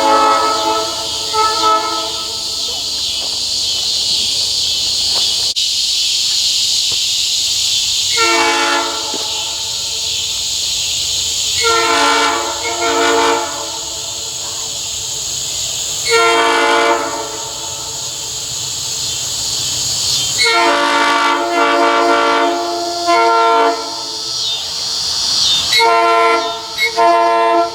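Locomotive air horn blown in a series of blasts, sounding a chord of several notes: one at the start, then roughly every four seconds, some held for a second or more and some broken into quick short honks, with the longest run a little past the middle. Insects buzz steadily and high-pitched underneath.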